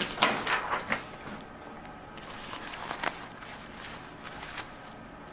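Hands handling a disposable diaper on a tabletop: a quick run of rustles and light taps in the first second, another about three seconds in, and a few faint ones as it is smoothed flat.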